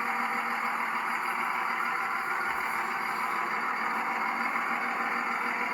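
1998 Dodge Ram 2500's 5.9 L Cummins inline-six turbo diesel idling steadily.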